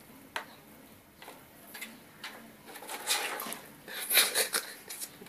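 A cat's paw and claws tapping and scraping against a CRT monitor's screen and casing: a few scattered taps, then a quick run of sharp clicks and scrapes about three seconds in, loudest near four seconds.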